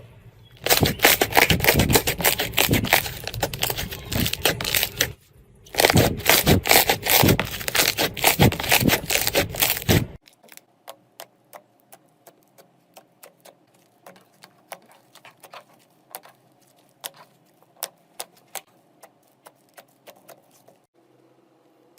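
Crunchy slime being squeezed and pressed, with dense loud crackling and crunching in two stretches. About ten seconds in it gives way to a much quieter run of sparse sharp clicks and pops from the slime being worked.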